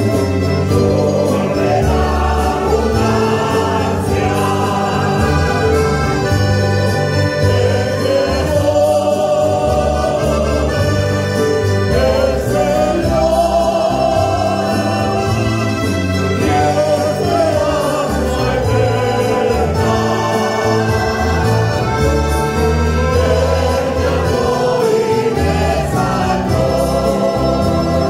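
Church choir singing a Spanish-language hymn together, accompanied by acoustic guitars and an accordion, at a steady strummed pace.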